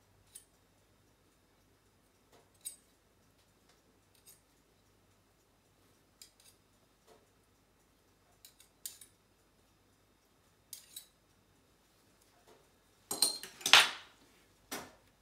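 Light, scattered clicks and taps of a small metal utensil against a mustard jar and the burger while mustard is spread, with a louder clatter about two seconds before the end.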